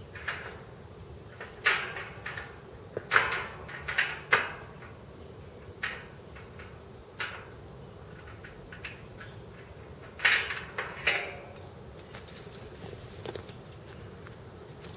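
Leather boots stepping and shifting on dry leaf litter: irregular crunches and scuffs, a few in quick pairs, the loudest about three seconds in and again about ten seconds in.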